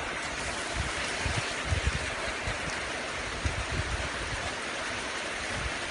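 Steady rushing noise with irregular low buffeting, typical of wind blowing across the microphone.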